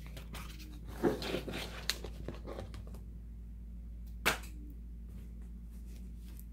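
A 7-inch vinyl record being handled and lifted off a wooden table: a run of light clicks and rustles about a second in, then one sharp tap a little past four seconds, over a steady low hum.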